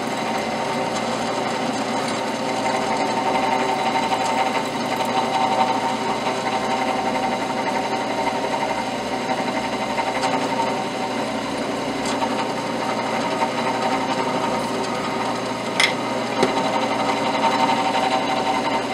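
Drill press motor running steadily while a small number 49 drill bit is fed slowly into a metal axle plug, drilling an angled vent hole. A brief high squeak about three-quarters of the way through.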